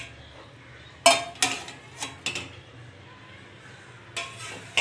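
Several sharp metal clanks and clinks: a flat aluminium plate used as a lid is taken off a hammered aluminium pot, with a perforated spoon knocking against the metal. The clanks come about a second in, a few more in quick succession, and again near the end.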